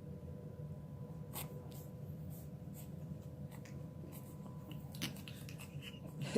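Shih Tzu puppies scuffling in their pen, with light scratching and scraping of claws: a few scrapes in the first half, more near the end. A steady low hum runs underneath.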